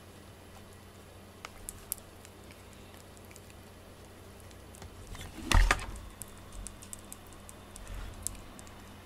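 Scattered light clicks and taps as a cat plays with a cord teaser toy on a desk, with one louder thump and rustle a little over halfway through.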